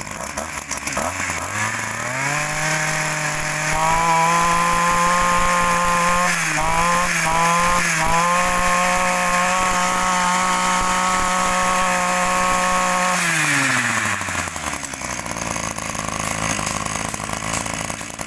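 Small two-stroke brush cutter engine revved up from idle to high revs, held there with a few quick throttle dips and blips in the middle, then let back down to idle about 13 seconds in.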